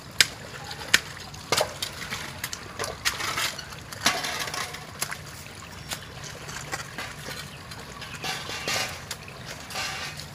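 Floodwater trickling and sloshing through a waterlogged orchard, with scattered sharp clicks and a few short splashy bursts.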